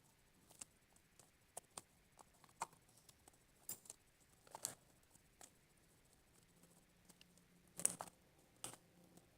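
Homemade slime being kneaded and stretched by hand: scattered faint sticky clicks and pops at an uneven pace, the loudest a little before the end.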